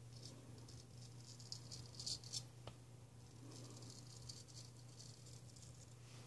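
Faint scratchy scrape of a Ralf Aust 5/8 round-point straight razor cutting through lathered stubble on the neck and jaw, in short strokes, over a low steady hum.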